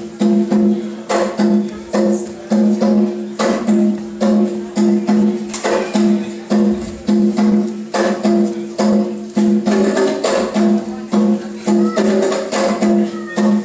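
Live band music with a steady beat: a short riff of sharp struck notes on two low pitches repeats over and over in a regular rhythm, with drums.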